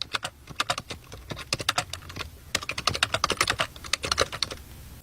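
Rapid, irregular clicking and tapping in quick runs with short pauses, like typing on a computer keyboard.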